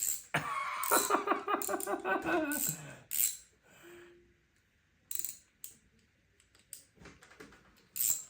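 A drawn-out wordless voice sound in the first few seconds, wavering and then falling in pitch. It is followed by scattered clicks and clinks of small metal tools and plastic being handled, from a cheap socket set.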